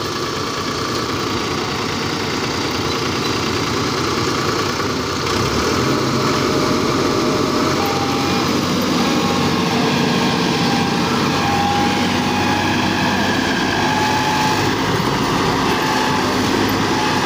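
Force Sanman 5000 tractor's diesel engine running hard while straining to pull an overloaded trolley of soil out of loose ground, getting louder about five seconds in and then holding steady under the load.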